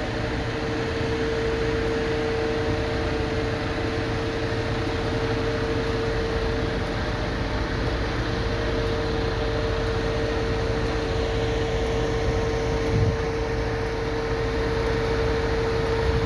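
Concrete delivery truck running steadily, a constant mechanical drone with a steady whine held on one pitch, with a couple of faint knocks near the end.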